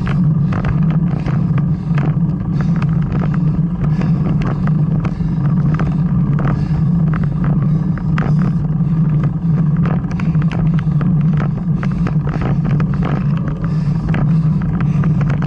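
Steady low hum with frequent small clicks and rattles: wind and road noise picked up by a camera carried on a bicycle climbing a mountain road.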